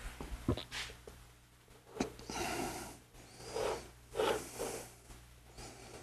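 A spoon clicking lightly against a small ramekin a few times, with soft scraping swishes as sticky cooked rice is spooned into it.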